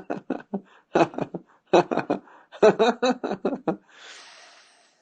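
A man speaking in short, spaced phrases, followed by a soft breathy hiss that fades away, like a long out-breath.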